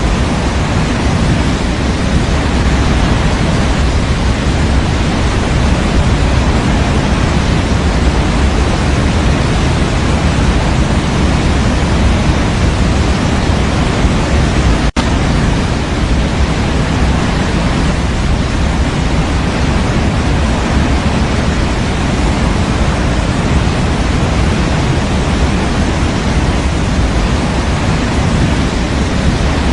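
Steady white-noise sleep track: an even, unchanging hiss with a deep rumbling low end, broken by a split-second dropout about halfway through.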